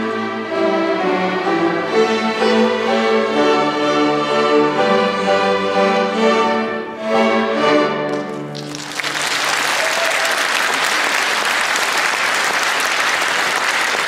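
A student string orchestra of violins, violas and cellos plays the closing bars of a piece and stops about eight and a half seconds in. Audience applause starts at once and carries on steadily.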